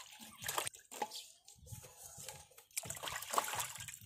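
Water splashing and trickling in a basin as hands wash and clean raw fish, in short irregular splashes.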